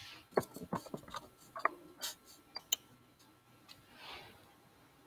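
A quick, irregular run of light clicks and taps over the first three seconds, then a soft breathy rush about four seconds in.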